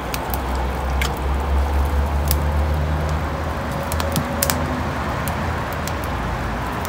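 Campfire crackling, sharp pops scattered every second or so, over a steady low rumble of road traffic.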